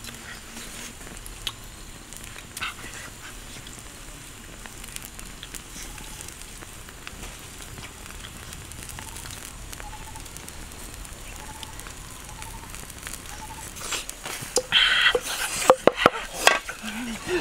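Whole chicken roasting on a stick spit over an open fire: a steady sizzling hiss with faint crackles. Near the end come several loud, sharp clicks and knocks.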